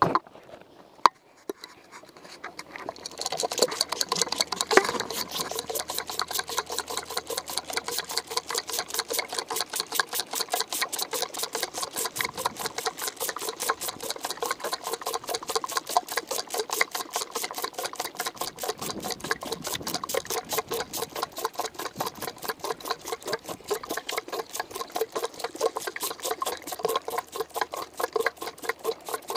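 A French Alpine kid goat suckling hard on a bottle nipple right at the bottle, a fast, even, rhythmic sucking and gulping that starts about three seconds in. It follows a couple of knocks as the bottle is bumped.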